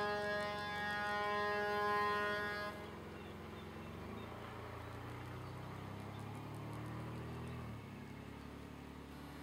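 Mine blast-warning siren sounding one steady multi-tone wail that cuts off suddenly about three seconds in. A quieter low machine drone follows, shifting in pitch about four seconds in and again near eight seconds.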